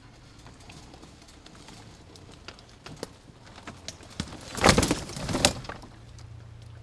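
Scattered crackles of twigs and dry leaves, then about a second of loud rustling and knocking a little past halfway as the dropped action camera lying in brush is jostled. A low steady hum runs underneath.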